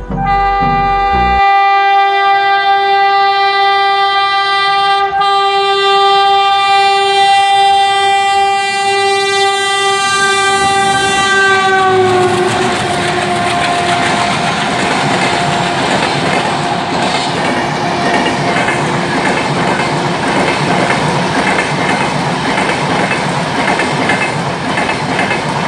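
WDM-3A diesel locomotive's horn blowing one long continuous blast for about twelve seconds, sliding down in pitch as the locomotive passes. Then the express's coaches rush past with a clickety-clack of wheels over rail joints.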